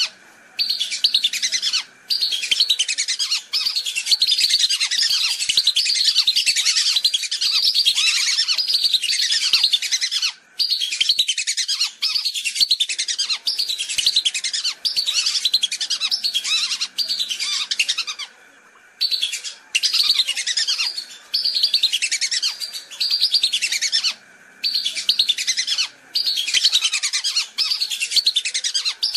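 Whistling ducks (belibis) calling as a flock, many high whistles and chirps crowding over one another, with brief pauses every few seconds. It is a recording played as a lure call to draw the ducks in.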